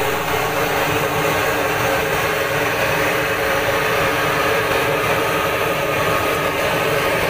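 Batter-coated fritters deep-frying in a large wok of hot oil: a loud, steady sizzle and bubbling hiss of the frying oil.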